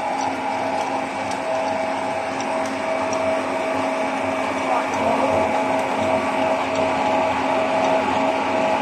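Biomass pellet mill running steadily under its electric motor, a constant machine drone with a steady whine over it.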